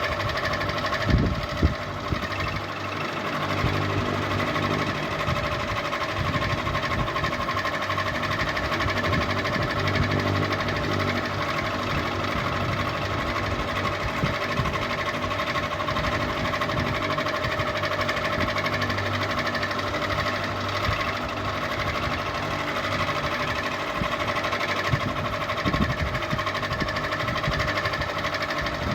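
Ceiling fan running steadily: a motor hum made of several steady tones over an uneven low rumble, with two brief louder knocks about a second in.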